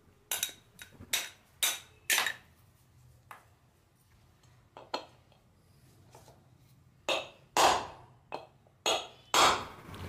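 Hammer blows driving a ceiling fan's ball bearings out of the motor's end plates: a run of sharp metallic knocks, about five in quick succession at the start, a couple of spaced strikes mid-way, then another cluster of four or five near the end.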